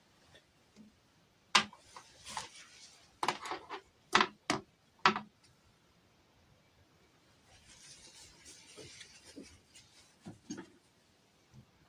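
Hands handling miniature toy pieces and packaging: several sharp clicks and taps in the first half, then soft rustling with a few lighter taps.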